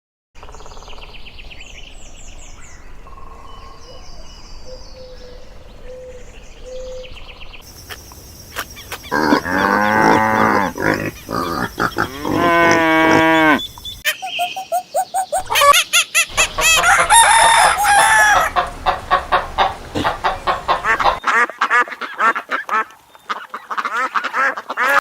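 Chickens and roosters calling: faint chirping at first, then two loud crows a few seconds apart, then a denser run of loud crowing and clucking. The sound changes abruptly a few times as one clip cuts to the next.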